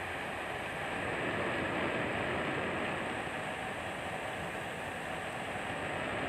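Diesel generator running, heard as a steady, even machinery noise with no changes in pitch or rhythm.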